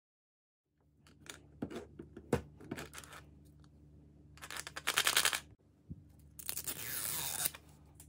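Hands handling a Zuru Mini Brands plastic capsule ball: a few light clicks and taps, then two stretches of about a second each of its plastic wrapping crinkling and tearing.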